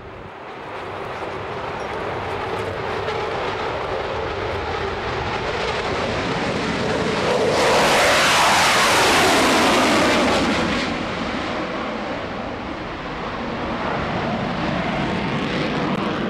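Eurofighter Typhoon's twin EJ200 turbofans with afterburners lit on takeoff and climb-out. The jet noise builds, is loudest from about eight to ten seconds in as the aircraft passes close with a falling pitch, then settles to a continuing rumble as it climbs away.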